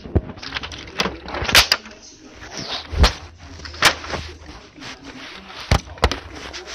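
Handling noise of toy vehicles on carpet: a run of separate sharp clicks and knocks, about seven in all, with rustling between them.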